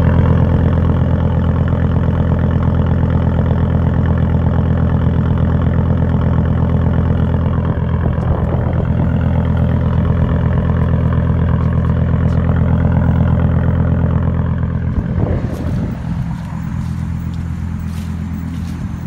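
Volvo S70's swapped-in B5234T3 2.3-litre turbocharged inline-five idling steadily, heard close to the exhaust tailpipe. It grows fainter after about fifteen seconds.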